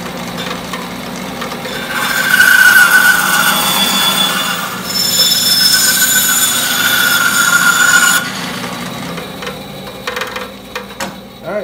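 Bandsaw running and cutting a rough-sawn black locust board. It makes two cuts of about three seconds each, starting about two and five seconds in, with a loud high whine from the blade in the wood. After about eight seconds the saw keeps running with no load, and a few knocks come near the end.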